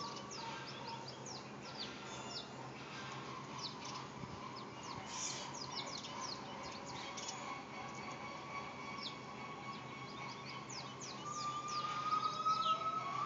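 Gibbons calling: long hooting notes, louder near the end, where they begin to glide upward in pitch, the start of a whooping call. Quick high chirps from small birds run throughout.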